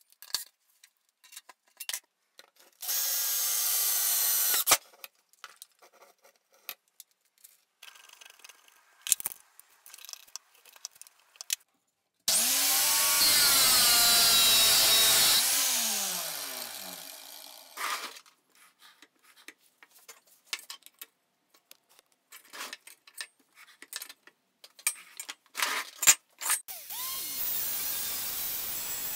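Angle grinder with an abrasive cutoff disc, mounted as a chop saw, cutting through steel tubing, then its motor winding down with falling pitch after the cut. Another cut starts near the end. A shorter power-tool burst comes a few seconds in, with scattered clicks and handling knocks in between.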